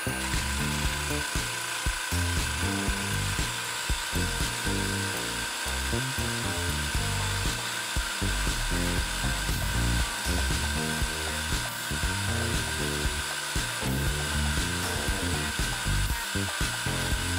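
Freund Spir-A-Flow rotor fluid-bed granulator-dryer running: a steady whine over an uneven low rumble.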